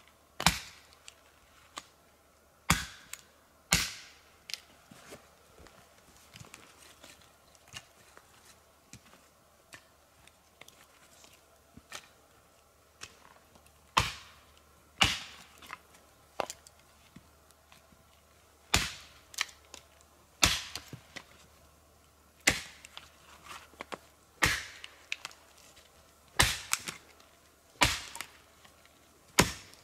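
Axe chopping wood on a stump: about a dozen sharp, loud strikes at irregular intervals, with lighter knocks of wood between and a stretch of about ten seconds with no hard strikes after the first three.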